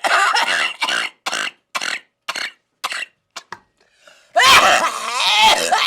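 A person coughing hard from the burn of Buldak spicy noodles: a harsh cough, then a run of short coughs about two a second, then a longer, strained cough with voice in it starting about four seconds in.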